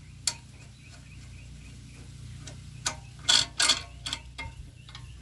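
Metal clicks and clinks from hand tools and fittings being handled on a small diesel engine's fuel system, several separate knocks with the loudest pair about three and a half seconds in, over a steady low hum.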